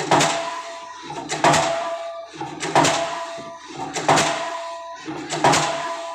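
K35 diesel pile hammer driving a concrete spun pile: a heavy blow about every 1.4 seconds, five in all, each followed by a short ringing tone that fades before the next.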